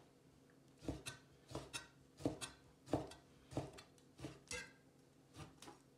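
Chinese cleaver slicing raw chicken breast on a plastic cutting board: quiet knocks of the blade on the board, mostly in pairs, about one pair every two-thirds of a second, with a short pause near the end.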